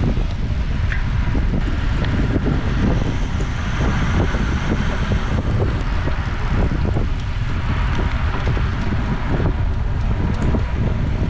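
Wind rushing over the microphone of a camera riding on a road bicycle at speed, a steady low rumble.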